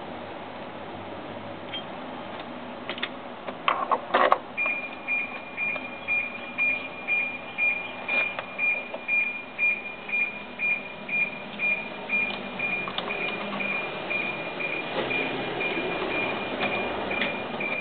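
A high electronic beep repeating steadily, evenly spaced, through most of it, with a short cluster of metal clanks about four seconds in as the scooter's drive belt and pulley parts are handled.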